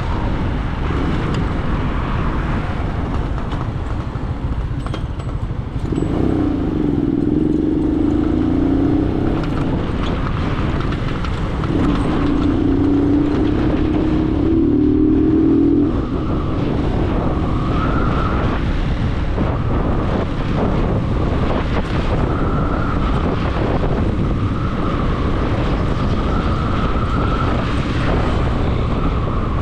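A motor vehicle driving, with steady engine and road rumble. The engine note climbs twice in the middle, as if accelerating through the gears, and drops off suddenly after the second climb.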